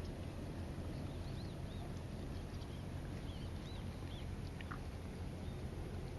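Steady low rushing of a river, with small birds giving a scatter of short, high, arched chirps over it and one quick falling note near the end.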